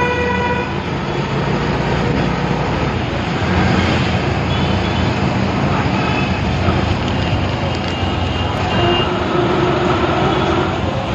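Steady engine and road noise heard from inside a moving vehicle in city traffic, with several short horn beeps from the traffic around it, one at the start, a few in the middle and a longer one near the end.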